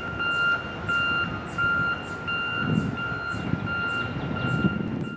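Back-up alarm on construction equipment beeping steadily, about three beeps every two seconds, over a low machinery rumble.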